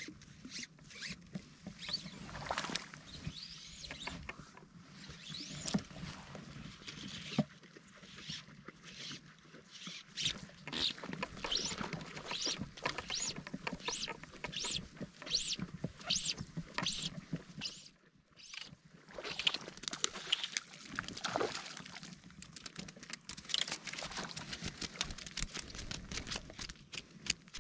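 Fly line being stripped in while a small brook trout is played to the net: a run of short rising zips, roughly one or two a second, among clicks and rustling.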